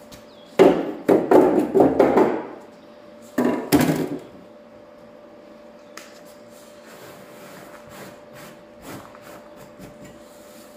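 Rusty debris and sheet metal being handled at a stripped truck door: two bouts of loud rattling and scraping, the first starting about half a second in and lasting under two seconds, the second shorter around three and a half seconds in. After that only light scattered ticks and rubbing as grit is brushed across cardboard.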